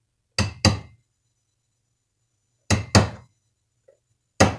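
Light taps on a small punch, driving a pin back into place in a carburetor body. The taps come as three pairs of two quick, ringing strikes, about two seconds apart.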